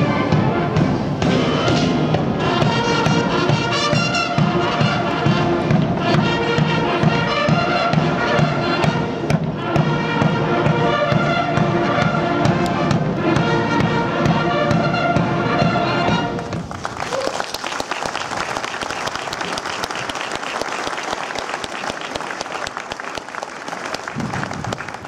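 Massed military band's brass playing, which ends about 16 seconds in and gives way to applause from the crowd.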